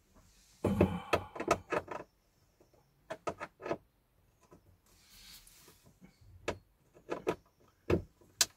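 Scattered clicks, taps and scrapes of a small T10 Torx driver and fingers working at the screws in the plastic instrument cluster cowling, with a quick run of clicks about a second in and more irregular ones later.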